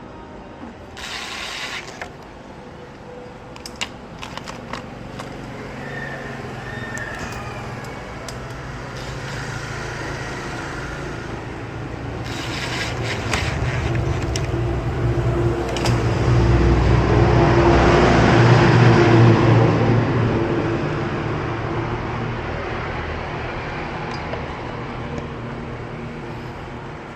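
A motor vehicle passing by: its engine and road noise build up, peak about two-thirds of the way through, then fade away.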